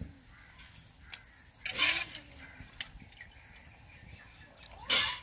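Fish curry simmering in an aluminium pot, bubbling with small scattered pops. Two brief loud noises break in, about two seconds in and near the end.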